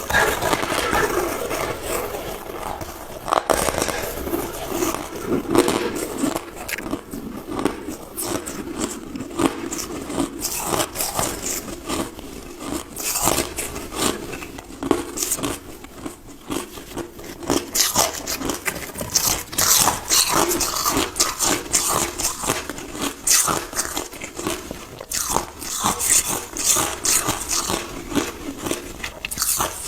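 Close-up crunching and chewing of crushed ice, a dense, irregular run of crackling bites that goes on throughout.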